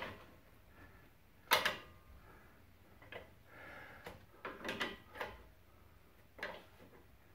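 Scattered metal clunks and scrapes as a pry bar levers the lower end of a 2006 Ford Explorer's new front strut into line with its mounting bolt hole. The loudest knock comes about one and a half seconds in, a cluster of lighter knocks around the fifth second, and one more near the end.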